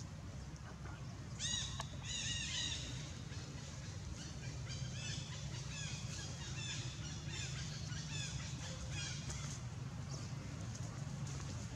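Series of short, high-pitched animal calls, each rising and falling, coming in a quick run about a second and a half in and then as scattered chirps, over a steady low rumble.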